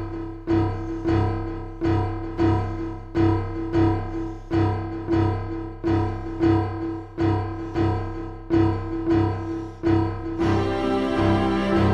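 Piano music: the same chord struck over and over in a steady, even pulse, about three times every two seconds. Near the end a fuller, sustained layer of other instruments joins in.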